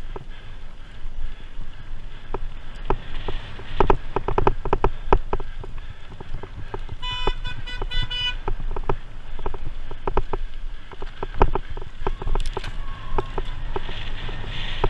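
Cyclocross bike rattling and clattering over bumpy grass and dirt at speed, with wind noise. About seven seconds in, a rapidly pulsing horn-like tone sounds for just over a second.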